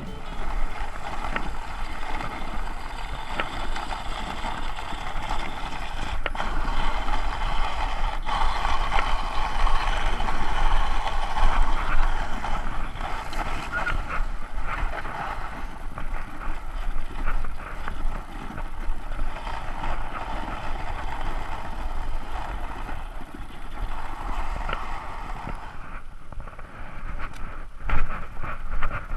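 Dog sled moving over snow: a steady hiss from the runners that swells and eases, with wind rumbling on the microphone.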